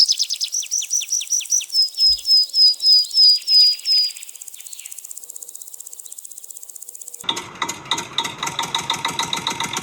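A bird sings a loud series of quick repeated high whistled notes, first falling strokes and then level whistles, over faint insect chirping. About seven seconds in, a small motor starts up with a fast mechanical rattle.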